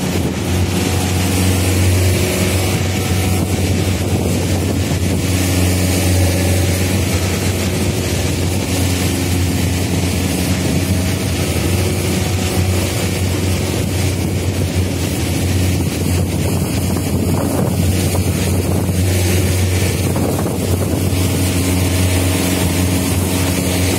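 Small motorboat's engine running at a steady low drone, with wind rushing over the microphone.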